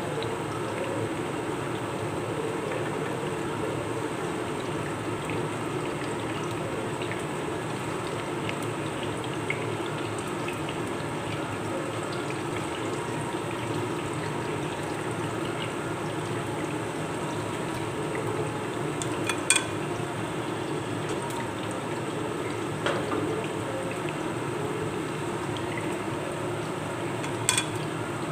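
Sweet potato slices frying in oil in a pan, sizzling steadily. A spatula clicks against the pan a few times in the second half.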